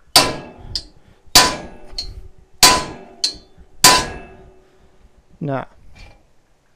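Claw hammer striking the head of a square-neck carriage bolt, trying to drive it into a drilled hole in a steel trailer rack tube. There are four hard metallic blows about a second and a quarter apart, each ringing briefly, and a lighter tap follows each of the first three. The bolt will not go in and is only marking the steel, because the hole is too small.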